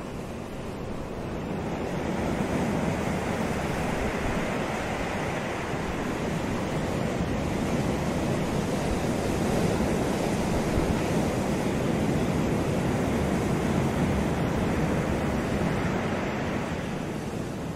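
Ocean surf, with small waves breaking and washing over shoreline rocks in a steady, even rush that swells louder about two seconds in.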